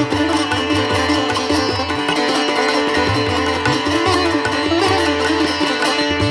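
Instrumental music in an Indian classical style: a plucked-string melody, sitar-like, over a steady drone.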